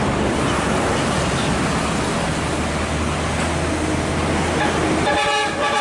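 Hino 500 FM320TI truck's diesel engine running as the truck rolls slowly over a dirt track, under a steady rushing noise. About five seconds in, a horn sounds briefly.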